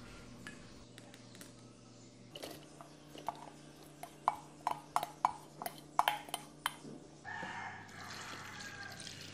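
Soft clicks, about two a second, as cooked mung beans go into a plastic blender jug. About seven seconds in, the sound changes to a steady pour as coconut milk is poured into the jug.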